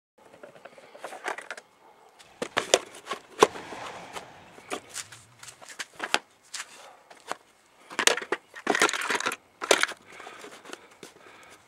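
Hard plastic parts being handled in a plastic toolbox: an irregular string of knocks, clicks and scrapes, thickest about eight to nine and a half seconds in.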